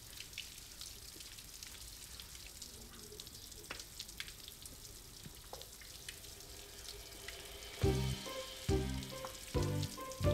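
Water running from the taps of an ablution fountain and splashing over hands, feet and stone, a light steady spatter with small drips. About eight seconds in, rhythmic background music with punchy low notes comes in over it.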